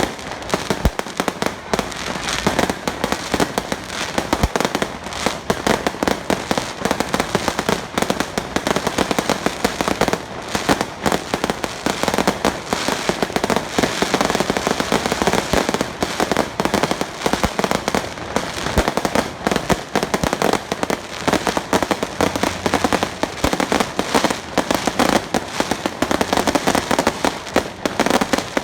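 Strings of firecrackers going off in a continuous, rapid crackle of sharp bangs.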